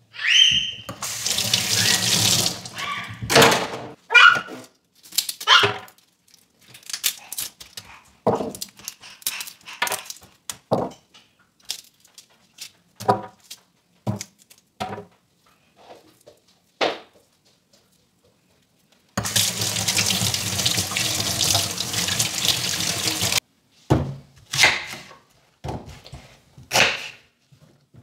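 Tap water running into a stainless steel sink, once for about three seconds just after the start and again for about four seconds two-thirds of the way through. In between come short sharp clicks and taps of a knife peeling onion and garlic over the sink, and near the end a knife cuts through an onion onto a plastic cutting board.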